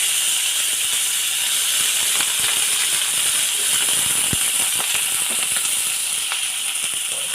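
Mustard seeds sizzling in hot oil in a kadai: a steady hiss with scattered small pops and crackles.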